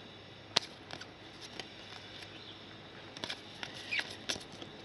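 Trading cards being handled and flipped through by hand: scattered light clicks and soft slides of card stock, with one sharper click about half a second in and small clusters of clicks near the end.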